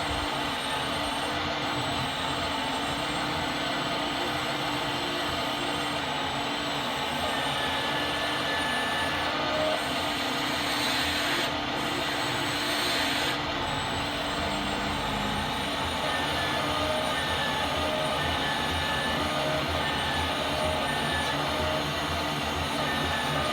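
A radio-controlled scale model's hydraulic oil pump running steadily, a dense mechanical whir with held tones. Short higher chirps repeat from about halfway through.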